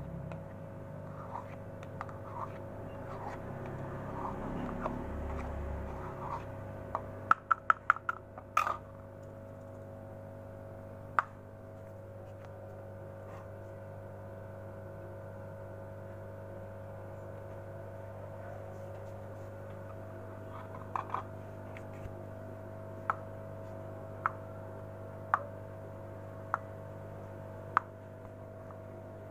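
Metal spoon clicking and tapping against thin plastic cups and a plastic bowl while catfish feed pellets are scooped and portioned: soft taps at first, a quick run of about five sharp clicks around eight seconds in, then single clicks every second or so near the end, over a steady low hum.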